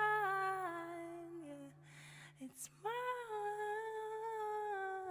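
A woman's voice holding long wordless hummed notes, each sagging down in pitch step by step, with a breath between them about two seconds in. A low steady hum sounds underneath.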